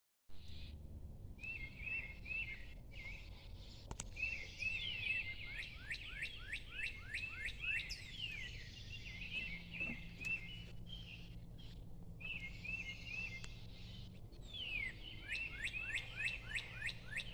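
Several songbirds singing: a steady chirping warble, with a run of clear down-slurred whistles repeated several times a second a few seconds in and again near the end, over a low steady background hum.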